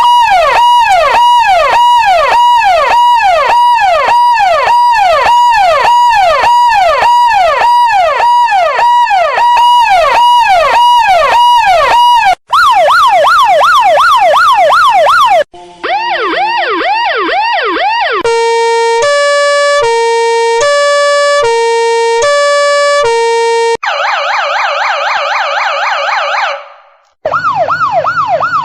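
A run of emergency-vehicle siren tones, one after another with abrupt cuts: a fast up-and-down yelp for about twelve seconds, two shorter yelps at other pitches, then a two-tone hi-lo alternating about once a second. After that comes a rapid buzzy warble that fades out, and a yelp again near the end.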